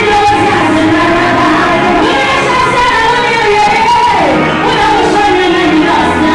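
Music with singing: a sung melody over a steady accompaniment.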